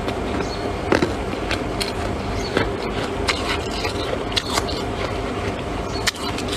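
Freezer frost crunching: sharp, irregular crackles over a steady background hiss.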